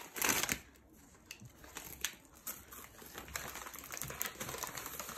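Bread bag crinkling and rustling as it is handled and folded shut by hand, loudest at the very start, with smaller crinkles after.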